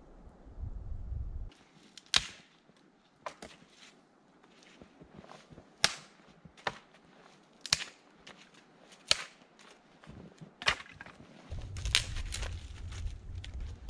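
Footsteps crunching through deep snow, with sharp snaps about once a second as twigs and branches break underfoot.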